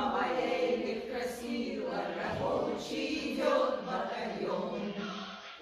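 A group of women singing a song together, with a short break between phrases near the end.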